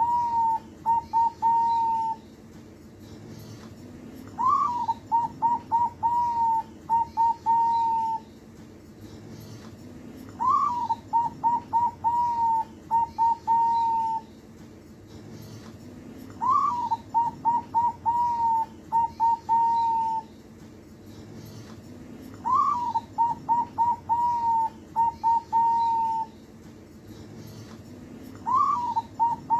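Zebra dove (perkutut) cooing its song phrase about every six seconds. Each phrase opens with a rising note, then runs into a quick string of short coos and ends with a few longer ones.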